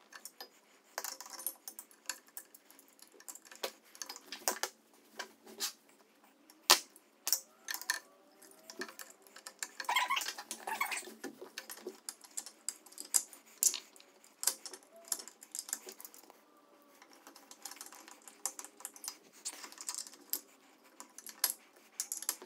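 A small metal screw and a hand screwdriver clicking and scraping against the motor's mounting bracket as the screw is fitted and started by hand. Irregular light clicks and ticks, with a longer clatter about ten seconds in.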